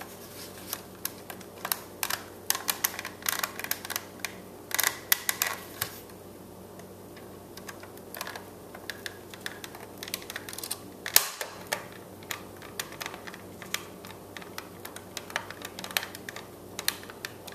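Irregular small clicks, taps and rattles of screws, a small screwdriver and hard plastic as a small fan motor is fitted and screwed back onto a car climate control unit's plastic housing, with one sharper knock a little past halfway.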